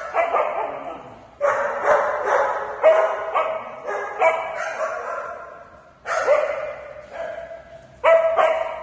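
Small dogs barking and yapping in repeated quick bursts during rough play, with a pause of about a second and a half in the middle. Each burst rings on briefly in a hard-floored room.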